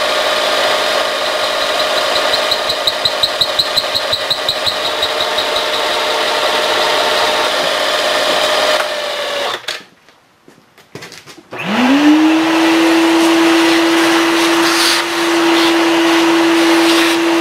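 Vertical milling machine running, its cutter opening up a hole in an aluminum casting with a fast ticking for a few seconds; it stops about nine seconds in. After a short lull a shop vacuum starts, its whine rising quickly and then running steady as it sucks up aluminum chips.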